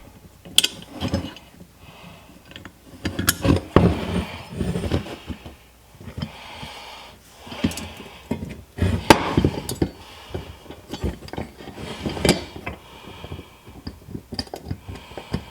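Metal pieces of a dead pedal bracket and its small hardware clinking and knocking as they are handled and fitted by hand, in irregular clicks with a few louder knocks.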